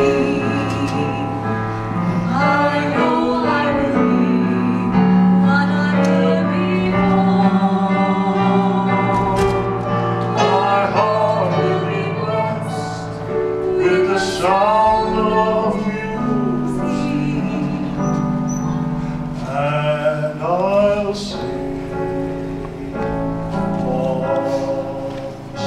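A man and a woman singing a slow stage-musical duet, with long held notes and vibrato, over a steady instrumental accompaniment.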